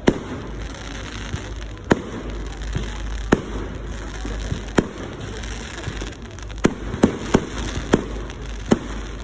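Fireworks display bursting: about nine sharp bangs, a second or two apart at first and coming faster in the last few seconds.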